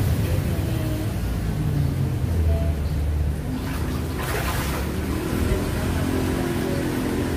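A motor running with a steady low hum, and water splashing in an inflatable pool about four seconds in.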